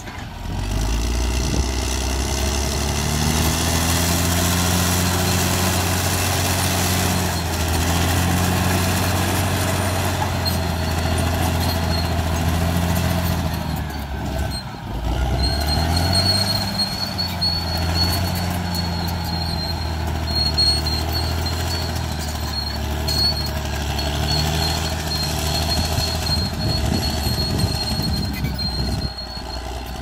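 Crawler bulldozer's diesel engine running hard while it works the earth, with a thin steady high squeal from the running gear. About halfway through the engine note drops briefly and climbs back up.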